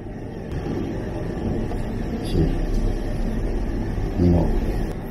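A steady low mechanical rumble of running machinery, with a short murmured voice about two and a half seconds in and again just after four seconds.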